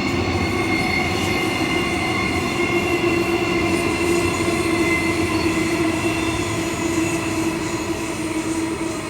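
Queensland Rail electric passenger train running at the platform, a steady whine of several tones over the noise of wheels on rail, with some wheel squeal. It starts suddenly and holds steady.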